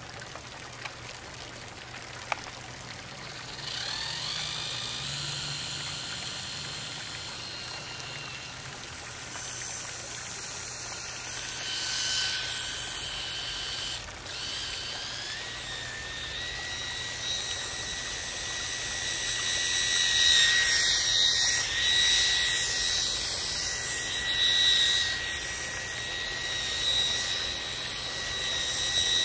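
High-pitched whine of a micro RC boat's tiny electric motor and propeller, starting about three and a half seconds in and stepping up in pitch, then running steadily, louder and softer by turns as the boat moves about. A sharp click comes about two seconds in.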